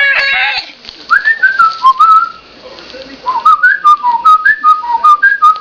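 A melody whistled in clear, pure notes: a brief vocal sound at the very start, a short phrase of sliding notes, then after a pause a longer, quicker run of notes.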